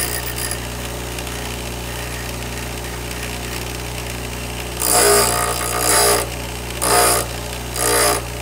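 Bench grinder motor running with a steady hum while a twist drill bit held in a sharpening jig is ground against the wheel to sharpen its tip: a brief grind right at the start, then four short grinding passes in the second half.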